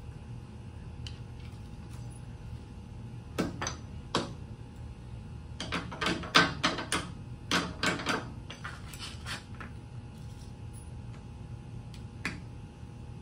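Irregular metal clanks and taps from hand work at the base of a steel safe door: two single knocks, then a quick flurry of a dozen or so over a couple of seconds, then a few lighter taps.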